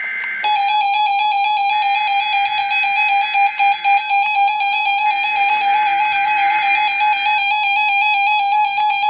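Emergency Alert System tones on a NOAA Weather Radio weekly test: the last half second of a SAME header data burst, a warbling two-pitch screech, then the long steady alert tone that holds for the rest.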